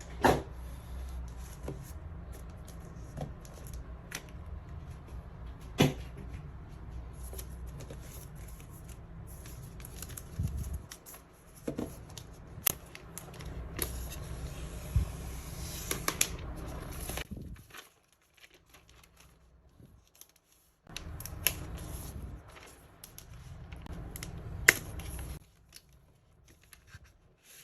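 Handling of a new MacBook Air and its packaging: scattered sharp clicks and taps with short bursts of rustling and tearing plastic, over a low steady hum.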